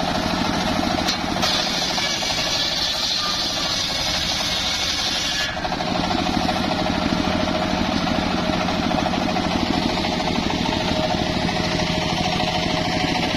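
Homemade engine-driven circular sawmill ripping an old mahogany board: a high, hissing cutting noise over the steady drone of the engine. The cutting noise stops about five and a half seconds in, and the engine and blade run on steadily without load.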